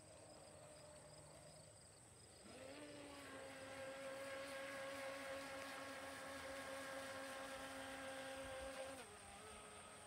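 Radio-controlled model speedboat's motor whining faintly across the water: the pitch rises quickly about two and a half seconds in, holds steady as the boat runs flat out, then drops back near the end.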